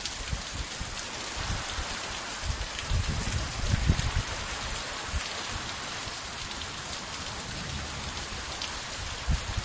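Heavy rain falling steadily in a storm, a dense even hiss. Brief low rumbles swell under it, about three to four seconds in and again near the end.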